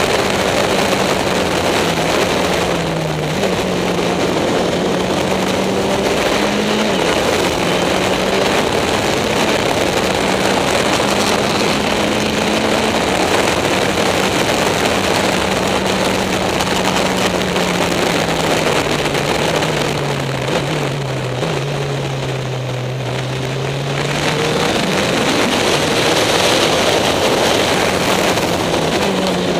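Caterham SP/300.R race car's engine heard from the cockpit at speed on track, with heavy wind and road noise. The engine pitch holds fairly steady with small steps. It dips briefly about three seconds in, then falls markedly and a little quieter for a few seconds about two-thirds of the way through as the car slows for a corner, before rising again.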